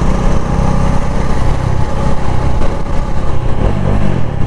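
Bajaj Dominar motorcycle's single-cylinder engine running steadily while riding on the highway, a loud low exhaust drone with a short swing in pitch near the end.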